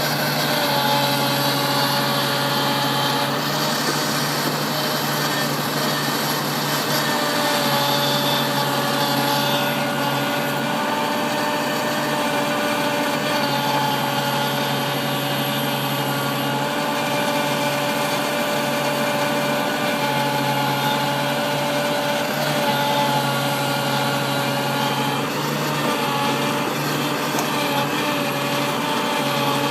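New Holland TV-140 tractor's diesel engine running steadily at an even speed, with a steady higher whine above the engine note.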